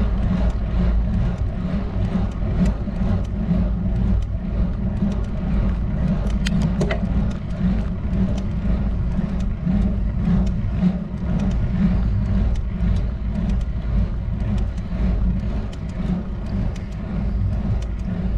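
Steady low rumble of a road bike climbing on asphalt, heard through the bike's own camera microphone, with scattered light clicks.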